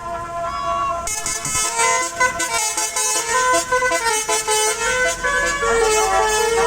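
Indonesian 'telolet' bus horn, a multi-tone musical air horn, playing a tune of stepping notes that starts about a second in.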